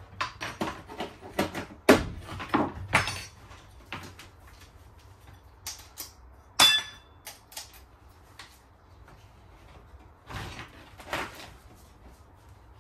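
Clicks, taps and knocks from handling a corded power tool and its cable, with no motor running. A quick run of clattering for the first few seconds thins out to scattered clicks, the loudest a sharp metallic click with a brief ring about six and a half seconds in.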